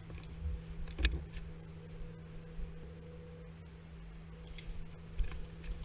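Steady low hum with low thumps and a few faint, scattered clicks, the sharpest about a second in.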